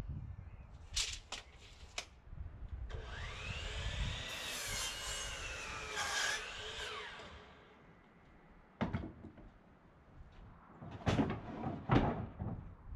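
A power drill runs for about four seconds, its pitch rising and then sagging as it bites into the work. Three sharp knocks come in the first two seconds, and a few more near the end.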